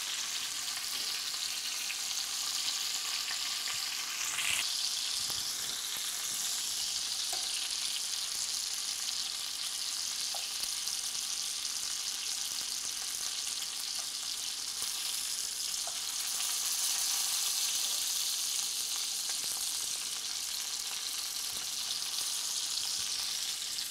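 Venison shanks sizzling steadily in hot fat in a cast iron Dutch oven as they brown over medium heat. A few light clicks come from the metal tongs turning the meat in the pot.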